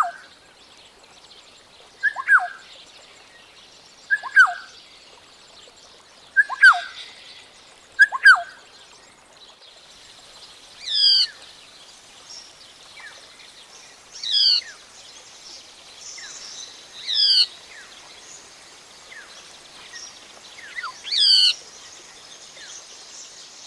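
Black-tailed oriole calling: short notes that drop steeply in pitch, repeated about every two seconds. About ten seconds in, a different recording takes over, with higher, thinner notes that slide down and up about every three seconds over a faint background hiss.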